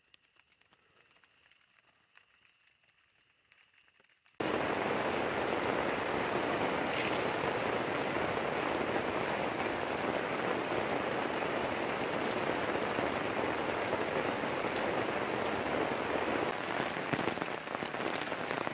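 Heavy, steady rain falling. It starts abruptly about four seconds in, after near silence.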